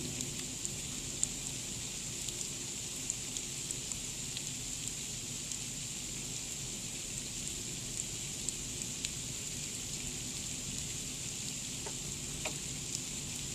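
Freezing rain and sleet falling steadily: a constant hiss with scattered sharp ticks of ice pellets hitting the house.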